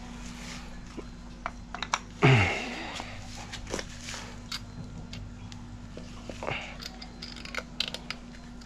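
Hand tools and metal engine parts clinking and knocking during engine teardown work. One louder sound about two seconds in drops in pitch, over a steady low hum.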